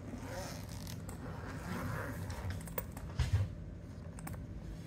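Zipper on a soft fabric pet carrier being drawn open, with a dull thump a little over three seconds in.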